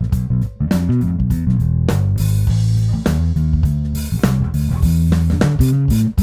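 Electric bass played through a Darkglass Microtubes 900 V2 bass amp head: a riff of quick, changing low notes with sharp percussive attacks.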